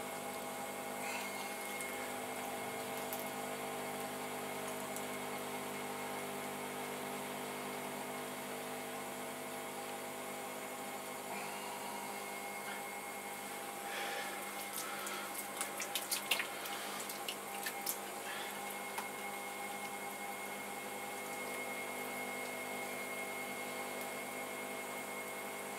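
Electric pottery wheel running with a steady hum while wet, slip-covered clay is coned up and down by hand on the spinning wheel, giving a wet, sloshing squelch. A little past halfway comes a short run of sharp wet clicks and slaps.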